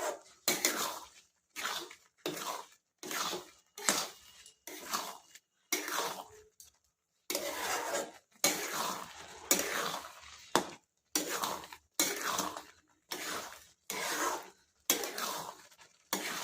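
A spoon stirring and scraping thick amla-and-jaggery launji in a cooking pan as its water is being cooked off, in repeated strokes a little over one a second, with a short break about seven seconds in.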